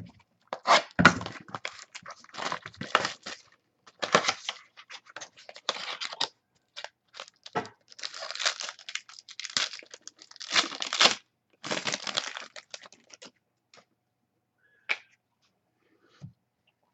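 Trading card pack wrappers being torn open and crinkled by hand, in a string of irregular rustling and tearing bursts that die away about three quarters of the way through, leaving a few faint ticks.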